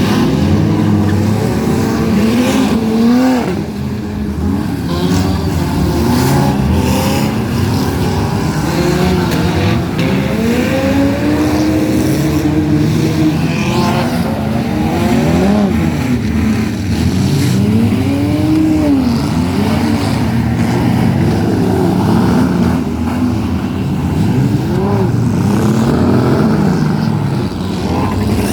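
Demolition derby cars' engines revving up and dropping back again and again, several at once, with a few sharp knocks.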